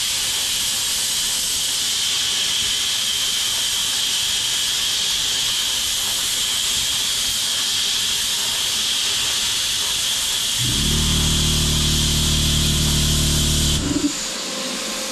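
Plasma cutter arc hissing steadily as it cuts steel plate. About 11 s in, a low electric hum joins as the air compressor motor starts, and near the end both cut off suddenly: the circuit breaker trips, unable to handle the compressor and the plasma cutter turned all the way up.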